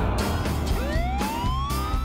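Cartoon background music with a steady beat, and a siren wail rising in pitch from a little under a second in.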